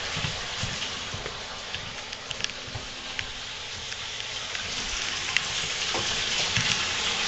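Steady hiss of a bathtub tap running water into the tub, with a few light knocks and clicks.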